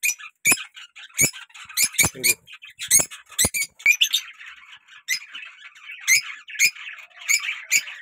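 Pet lovebirds calling: a rapid run of sharp, high squawks, over a dozen in all, with softer continuous chattering joining in from about four seconds in.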